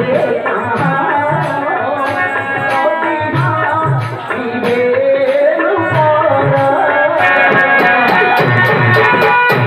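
Bharatalila folk-theatre music: a hand drum keeps a beat under a wavering melody, with sharp strikes marking the rhythm. About seven seconds in the strikes come faster and steady held notes take over.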